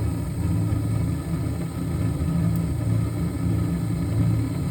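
Gas burners of an old Day and Night furnace lit and burning with a steady low rumble.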